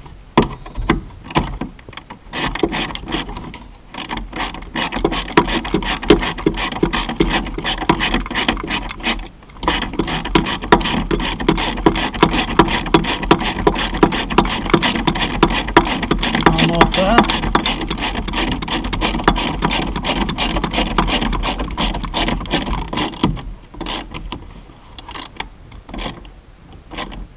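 Hand ratchet with a T25 Torx bit clicking rapidly as small Torx bolts are wound in. It goes in long runs of fast clicks with a couple of brief pauses, then thins to scattered clicks near the end.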